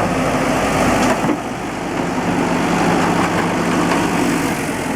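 Engine of heavy driveway machinery (a backhoe or a gravel truck) running steadily, a little quieter from about a second in.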